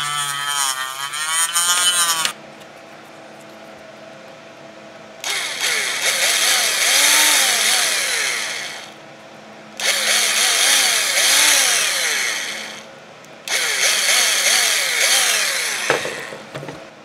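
A handheld rotary tool with a cut-off wheel grinds into a plastic enclosure for about two seconds, its whine wavering in pitch, then stops. After a short pause a cordless drill runs in three bursts of about three seconds each, drilling into a small 3D-printed plastic part, its pitch rising and falling with each run.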